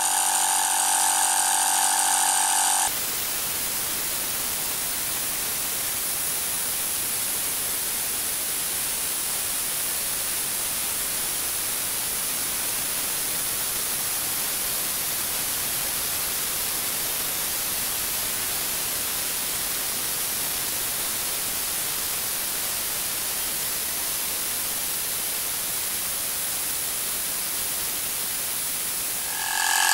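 12-volt 250 psi mini air compressor running as it inflates a flat car tire, a steady buzzing whine. About three seconds in, the sound cuts abruptly to an even hiss: the same pumping sped up twenty times.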